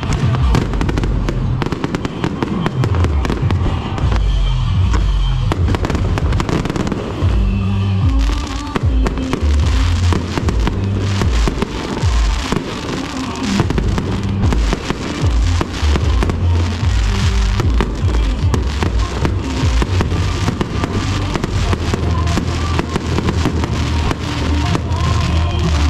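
Aerial fireworks display: many shells bursting in quick succession, the bangs densest in the middle, over loud music.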